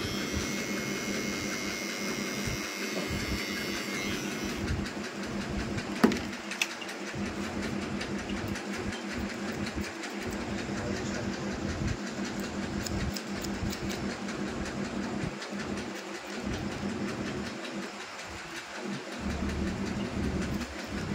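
Electric hair trimmer buzzing steadily as it cuts along the side of a man's head, with a sharp click about six seconds in.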